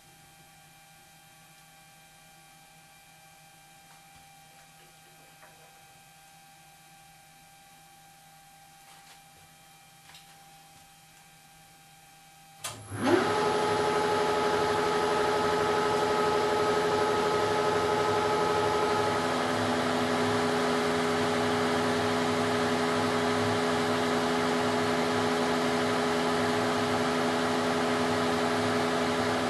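Faint hum with a few small clicks, then about halfway through a 1972 Weiler Matador SV lathe starts up suddenly and runs steadily at 600 rpm, humming with several steady tones, while a WNMG carbide insert takes a facing cut across the steel puck.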